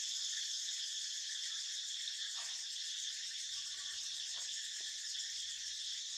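Steady chorus of insects in the forest, an even high-pitched drone that doesn't change.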